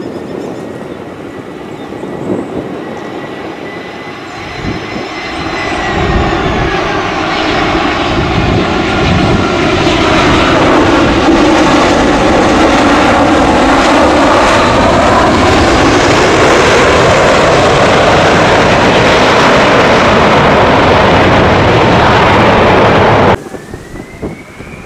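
Airbus A320 jet airliner landing: a high engine whine that falls slowly in pitch on approach, then loud, steady engine roar as it touches down and rolls out on the runway. The roar cuts off abruptly near the end, replaced by a quieter jet engine whine rising in pitch.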